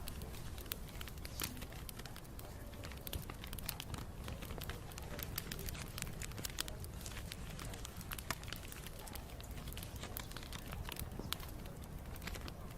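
Wood fire crackling, with many small irregular pops and snaps over a steady low rumble of the burning fire.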